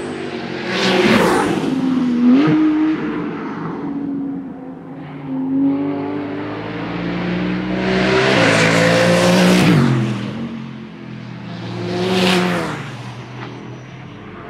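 Race cars passing at speed one after another. Each engine note rises as the car approaches and drops in pitch as it goes by, with the loudest pass a little after the middle.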